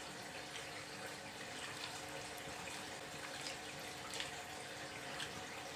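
Faint, wet chewing of a syrup-soaked rosogolla: a few soft mouth clicks over a steady low hiss.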